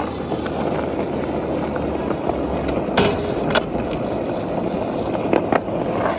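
Skateboard wheels rolling steadily on the ramps, with a few sharp clacks: two about three seconds in and a couple more past five seconds.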